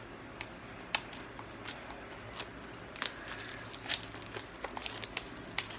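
Gift packaging being handled and opened: irregular crinkling and small sharp clicks and crackles, a dozen or so scattered short sounds.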